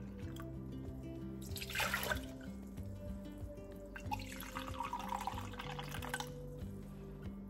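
Water pouring in a thin stream from a glass pitcher into a plastic measuring cup, loudest briefly about 1.5 s in and again from about 4 to 6 s in, over background music.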